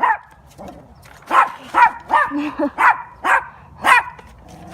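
Dog barking repeatedly: about seven short, sharp barks, one at the very start, then a quick run of six from just over a second in.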